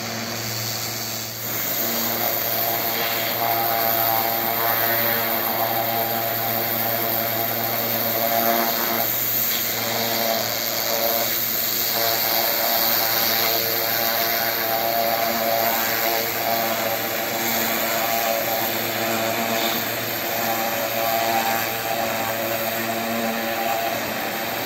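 Pressure washer running steadily: the pump motor hums while the high-pressure jet hisses against the wet stone floor of a fountain basin. It gets a little louder about a second and a half in.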